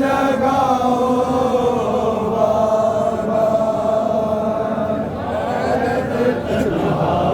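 Male voices chanting a Muharram noha (lament), drawing out long held, wavering notes, with one note held for a few seconds in the middle.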